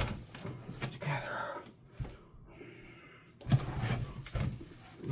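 Hands kneading a raw ground chicken and ground beef meatloaf mixture, with soft irregular squishing and handling noises that pause briefly mid-way.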